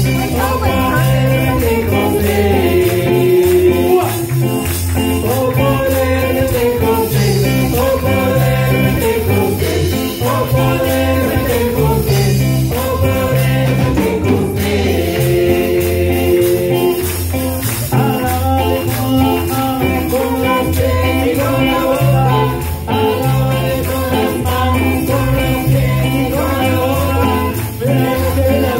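Live church worship band playing a chorus: electric guitar, electric bass and keyboard with singing over them, on a steady repeating bass rhythm.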